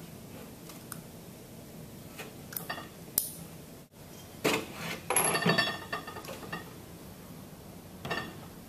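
Stainless steel pump parts and tools clinking and clattering on a table as they are handled, with a cluster of ringing metal clinks about halfway through and scattered clicks before and after.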